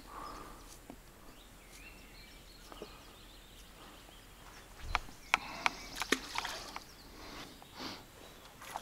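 Handling noise from an angler working with float-fishing tackle and bait at the waterside: several sharp clicks about five to six and a half seconds in, and soft rustling over a quiet outdoor hiss.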